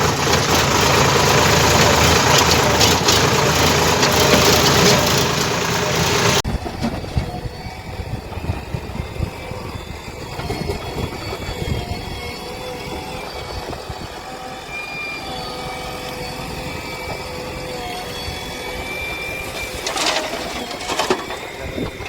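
A heavy diesel engine, likely a JCB excavator's, running loud and close; it cuts off abruptly about six seconds in. A much quieter engine hum follows, with a couple of sharp knocks near the end.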